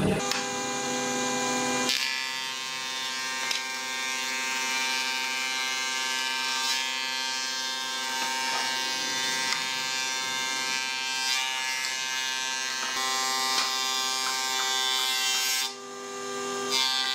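Electric motor of a combination jointer-thickness planer running with a steady whine after start-up. Near the end the sound dips briefly, then a louder rushing noise follows as a board is fed through the thicknesser cutter.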